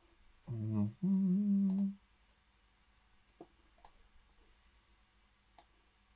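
A man hums a brief two-part "hmm" while thinking. A few scattered computer mouse clicks follow.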